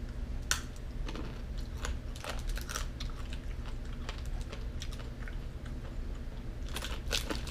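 Someone chewing Mexican 'Japanese peanuts', the hard flour-coated shell crunching in irregular crisp crackles, densest in the middle and again near the end.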